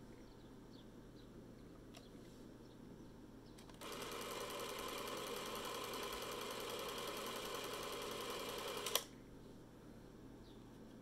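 Canon DS-8 Super 8 film camera running its motor-driven mechanism: a steady mechanical whir starts about four seconds in, runs for about five seconds and stops with a sharp click.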